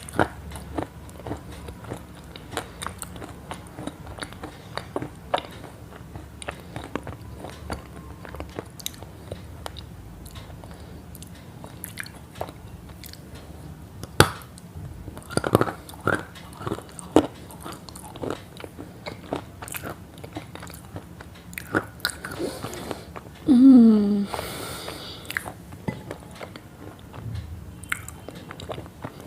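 Crunchy chewing and biting, a quick irregular run of sharp crunches and clicks. Near the end comes one short, loud vocal sound that falls in pitch.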